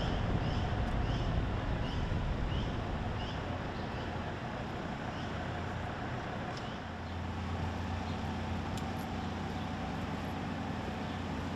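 A vehicle running steadily with engine and road noise, its low hum steadying about seven seconds in. A short rising chirp repeats about three times a second during the first few seconds.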